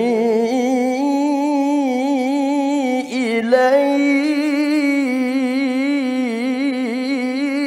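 A man's voice reciting the Qur'an in mujawwad style, holding one long ornamented note with a quick, wavering vibrato. There is a brief break about three seconds in, and the pitch rises a little after it.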